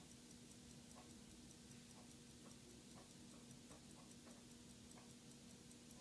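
Near silence: faint ticking about twice a second, not quite even, over a low steady hum.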